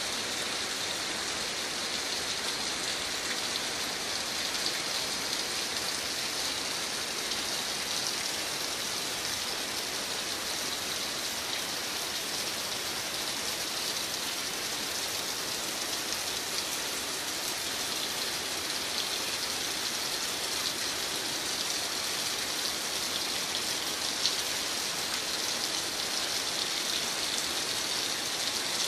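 Steady rain, an even hiss of falling drops that does not let up.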